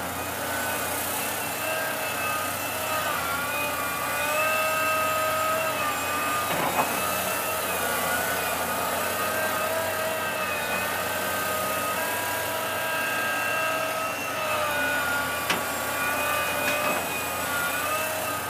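Liebherr R984C crawler excavator running, with a whine from its engine and hydraulics that steps up and down in pitch as the boom and bucket move. A single knock comes about six and a half seconds in, and lighter clicks come later.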